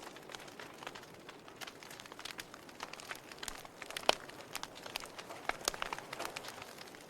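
Wood fire burning in a fireplace: logs crackling with irregular small pops over a soft hiss, one sharper pop about four seconds in.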